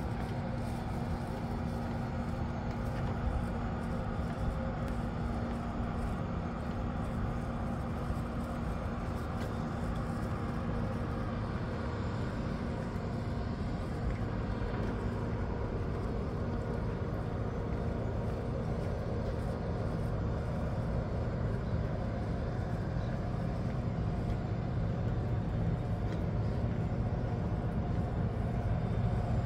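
Steady low machinery drone with a constant hum that does not change.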